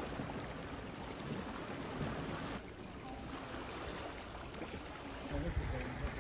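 Sea water lapping and washing around a kayak and nearby rocks, a steady wash of water noise. Wind buffets the microphone near the end.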